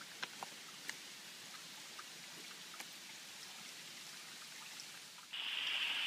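A few faint ticks over a low hiss, then about five seconds in a sudden switch to the steady, much louder rush of a small waterfall splashing down over rocks into a pool.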